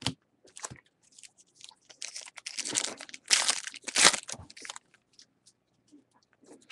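A foil trading-card pack wrapper torn open and crinkled: a run of crackling from about two seconds in to nearly five seconds, loudest in the middle, with a few light clicks of handled cards before and after.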